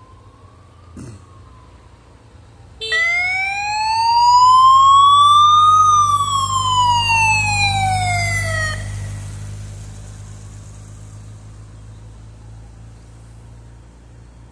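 Siren of a passing escort motorcycle: a faint wail at first, then a loud wail that starts suddenly about three seconds in, rises for about three seconds, falls for about three and cuts off. Under it the motorcycle's engine grows and fades as it goes by.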